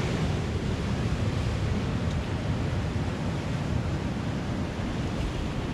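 Ocean surf breaking and washing over a rocky shore, a steady wash of water with wind rumbling on the microphone.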